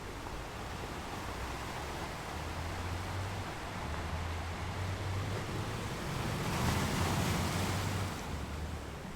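Ocean surf washing steadily, swelling louder as a wave breaks about two-thirds of the way in.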